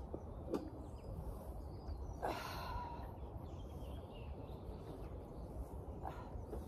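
Low steady wind noise on the microphone, with a few faint short knocks and a brief metallic scrape about two seconds in as a galvanised round-bale feeder ring is tipped up.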